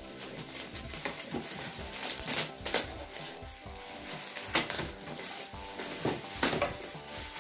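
Shiny metallic gift-wrapping paper crinkling and tearing as it is pulled off a box, in a string of sharp crackling rips.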